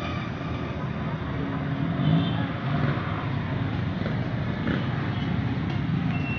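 Outdoor street ambience: a steady din of traffic, with faint scattered voices.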